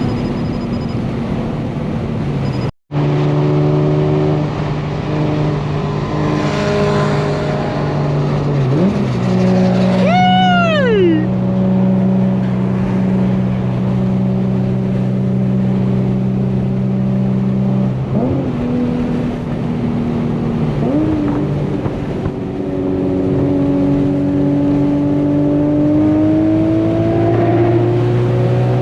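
Infiniti G37's 3.7-litre V6 through an ISR Single Exit GT exhaust, heard while driving. The note drops in pitch at a few gear changes and climbs steadily near the end as the car accelerates. A short rising-then-falling whine comes about ten seconds in, and the sound cuts out briefly near the start.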